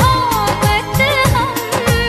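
Bollywood film song playing: a gliding melodic lead line over a steady beat of low drum strokes.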